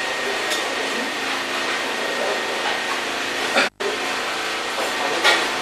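Electric pedestal fan running with a steady whirring hiss, faint voices behind it, broken once by a momentary cut to silence a little past halfway.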